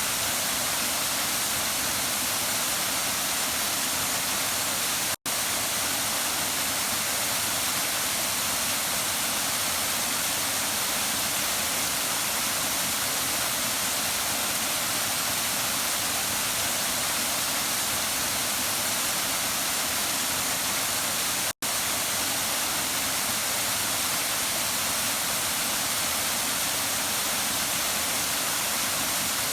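Waterfall rushing in a steady, even hiss of falling water. The sound drops out for an instant twice.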